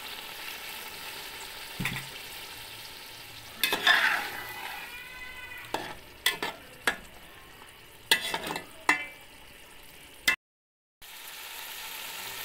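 Water poured into a metal pot of frying minced meat and potatoes hisses and sizzles, then a perforated metal spoon stirs the mix, clacking and scraping against the pot several times. The sound cuts out briefly about ten seconds in, and the sizzle comes back near the end.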